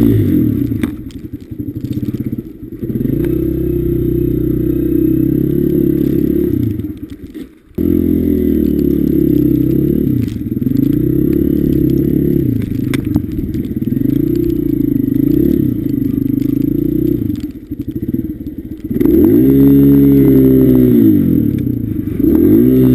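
Honda CRF150F dirt bike's single-cylinder four-stroke engine under way, revs rising and falling every couple of seconds as it is ridden through snow. About a third of the way in the engine sound drops away sharply for a moment, then comes back abruptly.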